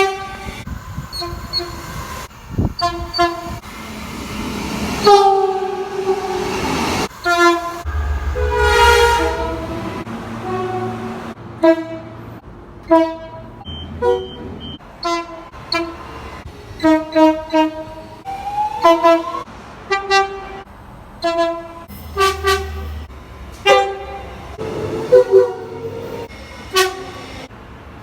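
Train horns sounding: a few longer blasts, one falling in pitch, then a long string of short toots in quick succession.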